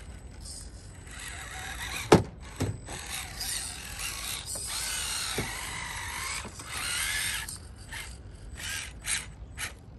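Electric motor and gear drivetrain of a 1/10-scale Losi Night Crawler SE rock crawler whining as it crawls, the pitch wavering up and down with the throttle. A sharp knock about two seconds in is the loudest sound, and a few short clicks follow near the end.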